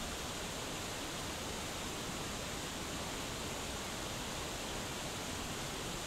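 Waterfall pouring down a rock face: a steady, unchanging rush of falling water.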